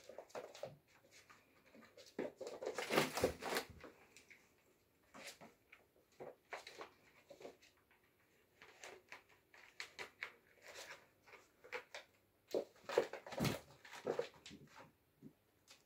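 Kittens scampering and scuffling on a wooden floor: scattered light taps and scratches of paws and claws. There are two louder bursts of scrabbling, a few seconds in and again about a second before the end.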